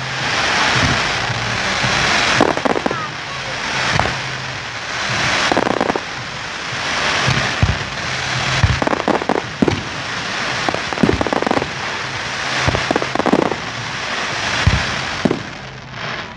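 Fireworks display: rapid bangs from many shells bursting, over a dense, continuous crackle and hiss.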